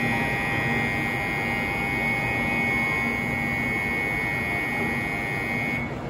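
Shinkansen platform departure bell at Tokyo Station ringing continuously as a steady high electronic ring, the signal that boarding has ended and the doors are about to close. It cuts off shortly before the end.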